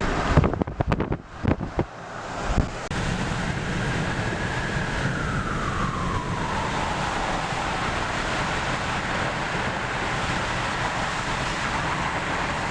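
Steady rush of wind and road noise from a moving car, with a few knocks on the microphone in the first couple of seconds. A faint tone slides down in pitch around the middle.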